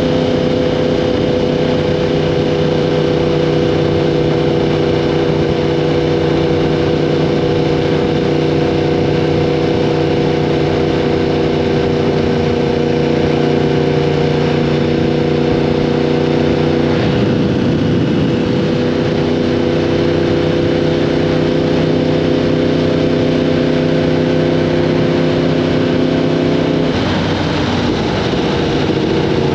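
Yamaha R1M's crossplane four-cylinder engine running through an Akrapovic exhaust at steady revs. The engine note briefly wavers and shifts in pitch twice, about seventeen seconds in and again near the end, then settles to a steady note again.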